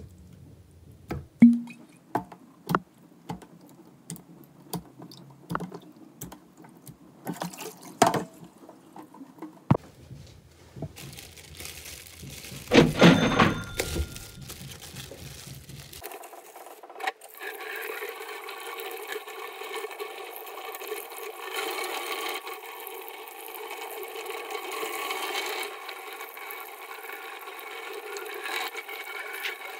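Plastic containers and raw meat knocking and clattering in a stainless steel sink, with a louder rustling scrabble partway through. About halfway in, tap water starts running steadily into the sink as fish are rinsed under it.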